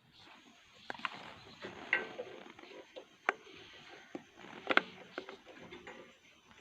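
Scattered light clicks and knocks of hand work on a power tiller, as tools and small metal parts are handled, with the loudest knock a little past the middle.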